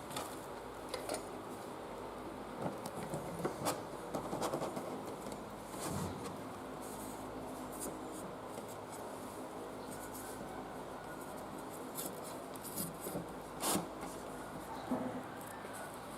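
Faint rubbing and scattered light clicks and taps of hands working on the container and lid of a homemade fan air cooler, with one sharper click about three-quarters of the way through.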